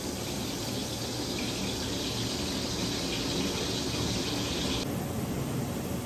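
Water running, a steady rushing hiss that stops suddenly about five seconds in, over a steady low background rumble.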